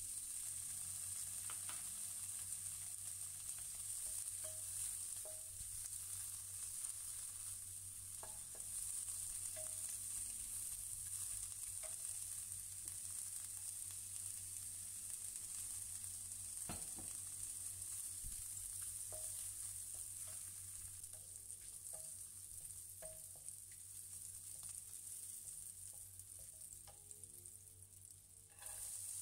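Sliced crab balls sizzling in hot oil in a ceramic-coated frying pan: a steady frying hiss with occasional light knocks from a wooden spatula against the pan. The sizzle drops away briefly near the end.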